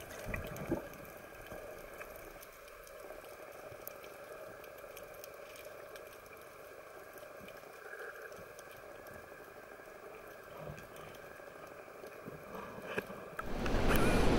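Faint underwater ambience: a low hiss with scattered small clicks and crackles. About a second before the end it cuts to loud wind and sea noise at the surface.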